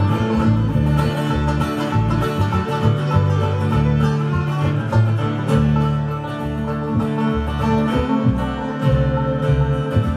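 Old-time string band playing a fast instrumental tune live, with banjo and guitar driving it along over moving bass notes.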